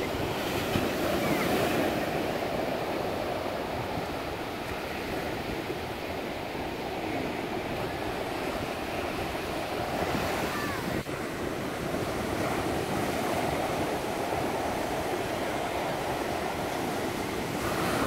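Small waves breaking on a sandy beach and washing up the shore, the surf swelling each time a wave breaks and easing between.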